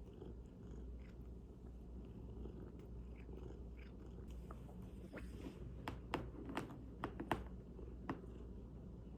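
A domestic cat purring steadily. A cluster of short, sharp clicks comes about five to seven seconds in.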